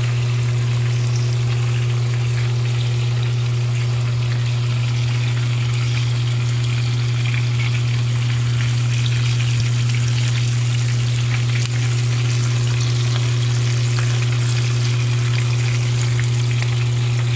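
Fish deep-frying in a pan of oil: a steady sizzle with many small crackles and pops, over a loud steady low hum.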